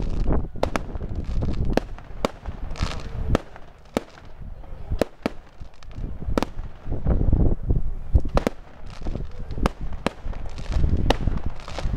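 Aerial fireworks going off: many sharp bangs and crackles at uneven intervals, with a low rumble underneath.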